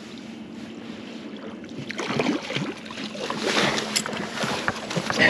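Boat motor humming low and steady while trolling. About two seconds in, uneven water splashing and rustling join it as a hooked kokanee salmon is netted beside the boat.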